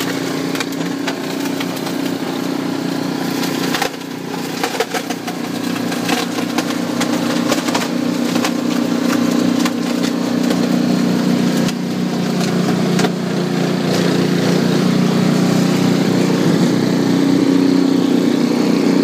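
Snowblower's small engine running steadily, growing gradually louder, with scattered short clicks and knocks.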